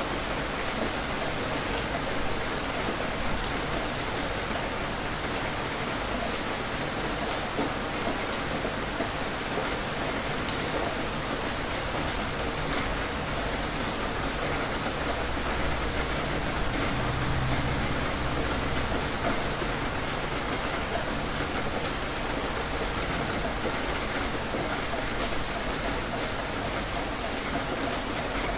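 Heavy rain falling steadily, with a dense patter of drops and a low rumble for a few seconds midway.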